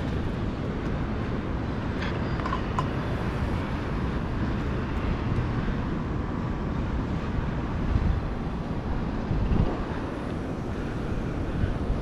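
Wind buffeting the microphone over a low, steady city rumble, with a few light taps of gloves and boots on the steel ladder's rungs about two to three seconds in.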